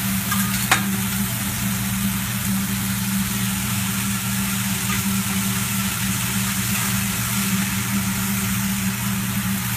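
Food sizzling on a hot teppanyaki griddle, a steady hiss over a constant low hum, with one sharp clack near the start.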